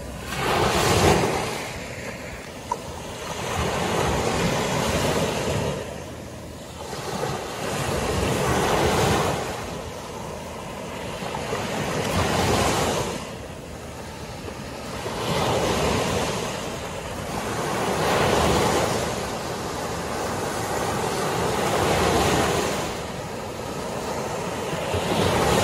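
Small waves breaking and washing up a sandy beach, the surf swelling and fading every three to four seconds.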